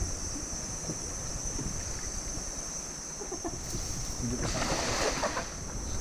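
River and jungle ambience from a drifting wooden longboat: water and wind noise with a steady high insect drone, and a brief louder rush of noise about four and a half seconds in.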